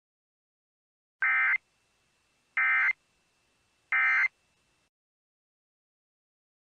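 Emergency Alert System end-of-message tones: three short electronic data bursts, each about a third of a second, spaced about a second and a quarter apart.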